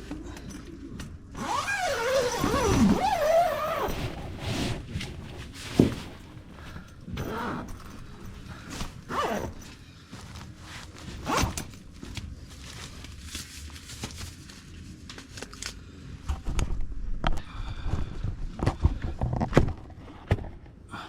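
Tent's mosquito-net zipper drawn closed, its pitch wavering up and down as it runs around the door, followed by intermittent rustling, scrapes and knocks of gear being handled inside the tent.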